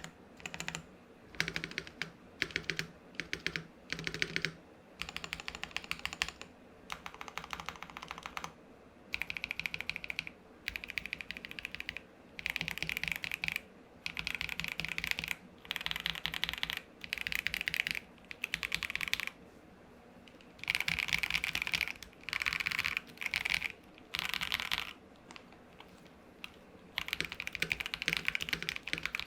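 Typing on a mechanical keyboard fitted with stock, unlubed KTT Peach linear switches, in a KBD67 Lite R2 with a polycarbonate plate: bursts of rapid keystrokes separated by short pauses. The switches give the deep, thocky sound they are known for.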